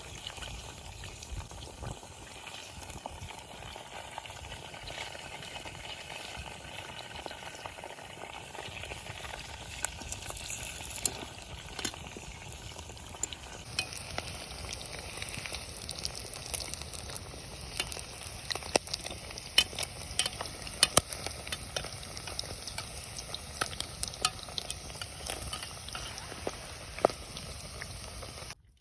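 Meat frying in a kazan over a campfire, sizzling steadily with many sharp pops and crackles that come more often in the second half.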